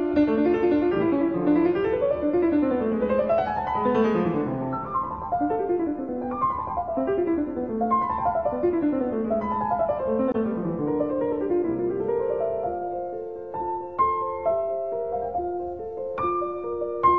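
Solo piano music in fast runs that sweep up and down, settling into slower, separate notes about twelve seconds in.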